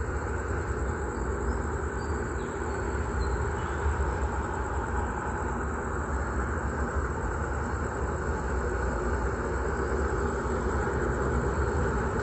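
Freight train hauled by a Thai State Railway Alsthom diesel-electric locomotive, running steadily with an even, unbroken noise.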